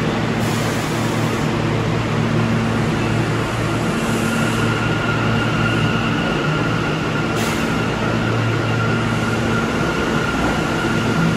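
R179 subway train moving slowly along an underground station platform: a steady motor hum with a thin high whine coming in a few seconds in, and a few short hisses of air.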